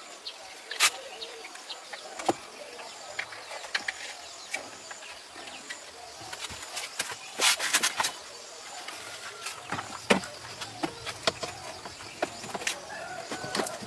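Irregular sharp clicks and knocks, with a dense cluster about halfway through, over a faint steady outdoor background.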